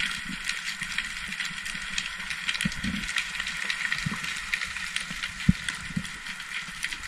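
Underwater ambience picked up through a camera's waterproof housing: a steady hiss, scattered crackling clicks and a few low muffled thumps.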